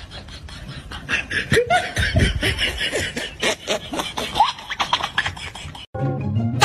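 Laughter in quick, rapid bursts, cut off abruptly near the end.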